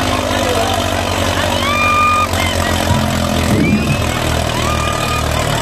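Diesel tractor engine running hard in a pulling competition, a deep steady drone that pulses in the second half, with a crowd shouting over it.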